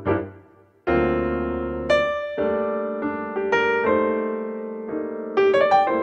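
Background piano music: unhurried chords and single notes, each fading away, with a quick run of higher notes near the end.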